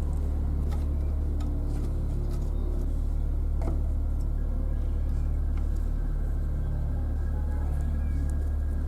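Homemade box subwoofer, fed through 1000 µF and 6800 µF capacitors, playing deep, steady bass, with a slight shift in the low notes about six seconds in.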